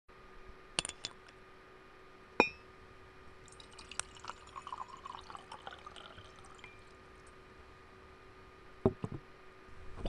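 Foley of a ceramic mug: a sharp clink with a brief ring, then several seconds of faint crackling and ticking as the mug cracks, and two dull knocks near the end.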